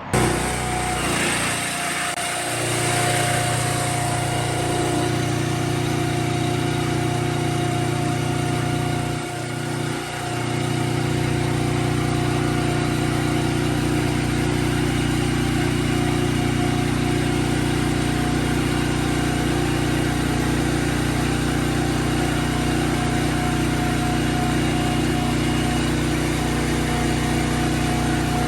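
An engine running steadily; the sound comes in abruptly and dips briefly about nine seconds in.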